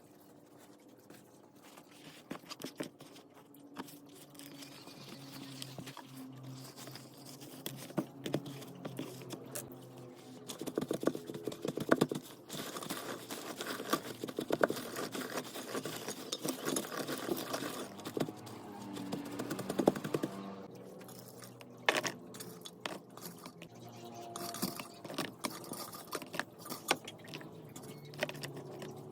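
Handling sounds of food preparation: many small clicks, knocks and scrapes of kitchen items and containers, busiest in the middle.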